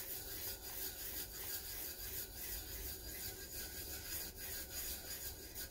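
A hand rubbing loose glitter into double-sided adhesive on a tumbler: a soft, gritty rasp repeated stroke after stroke.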